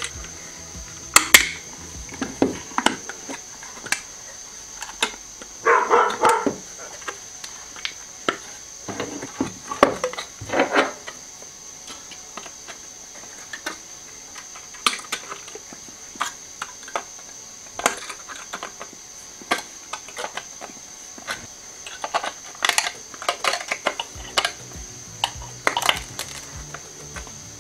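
A Citroën C6 plastic turn-signal lamp housing being handled and fitted together, with irregular clicks, knocks and rattles of hard plastic and a small metal tool, in a few busier clusters. A faint steady high whine runs underneath.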